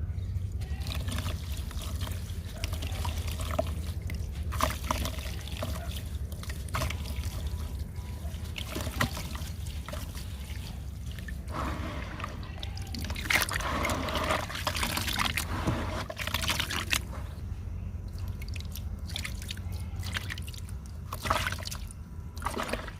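Water poured and dribbled onto dry sand-cement crumbles, with fizzing and crackling as it soaks in; the crackling is densest about halfway through. A steady low hum runs underneath.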